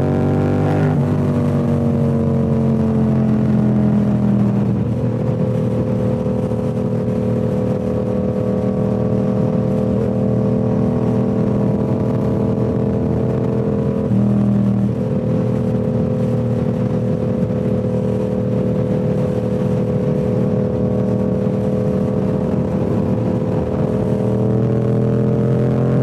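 Yamaha R7's 689 cc parallel-twin running through a Toce full-system exhaust while riding. The engine note drops about a second in and again near five seconds, then holds steady at cruising speed with a brief change around fourteen seconds in, and climbs near the end as the bike accelerates.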